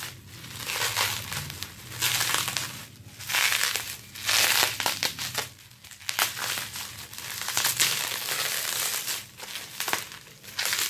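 Plastic bubble wrap crinkling and rustling in repeated bursts as it is pulled and unwrapped by hand from a small bottle.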